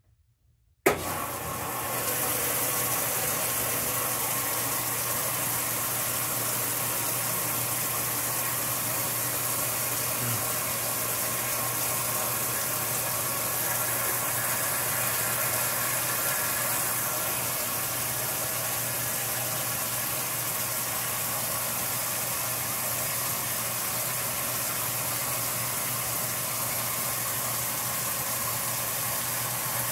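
Whirlpool Supreme belt-drive top-load washer starting its warm rinse: water cuts in suddenly about a second in and then rushes steadily into the tub, with a low hum under it.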